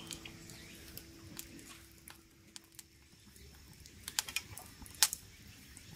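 Scattered light clicks and taps, a quick cluster about four seconds in and the sharpest near the end, while a ringing note fades out over the first few seconds.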